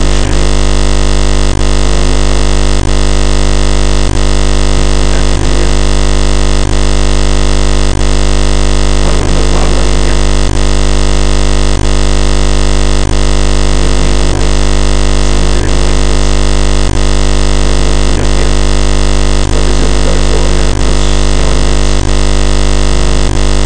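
Loud, steady buzzing noise made of many fixed tones, dipping briefly about every 1.3 seconds.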